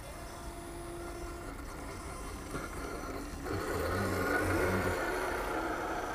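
Small electric motor and gearbox of a scale RC rock crawler whirring as it climbs a steep dirt slope. It gets louder about three and a half seconds in, with a fainter steady hum before that.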